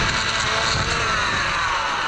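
Husqvarna 500-series pole edger running, a steady motor whine from the blade cutting along the concrete edge, its pitch falling slowly.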